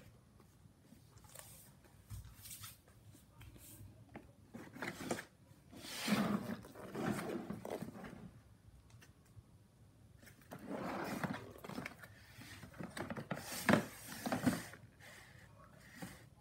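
Cardboard packaging and a hard plastic tool case being handled: two stretches of scraping and rustling, with a sharp knock near the end of the second.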